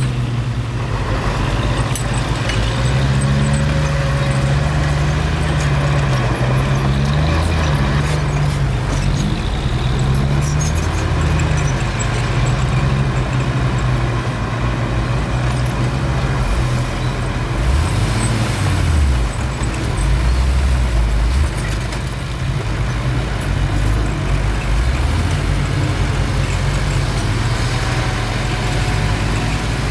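Bulldozer's diesel engine running steadily under load, its low pitch shifting up and down as it works, with a brief dip and rise in pitch about two-thirds of the way through.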